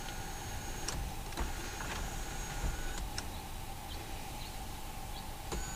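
Electric motor of a 2021 Honda HR-V's power moonroof running as the glass panel slides open: a steady whine that stops and starts a few times, with clicks where it does.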